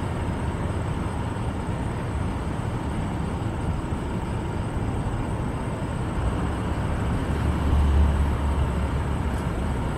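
Oshkosh Striker airport crash-rescue truck driving past at low speed, a steady low engine rumble over a wash of outdoor noise. The low rumble swells for about a second around eight seconds in.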